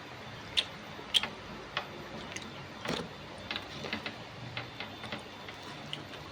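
Eating sounds: irregular small clicks and smacks of a mouthful being chewed, a dozen or so spread unevenly, the sharpest about half a second and just over a second in.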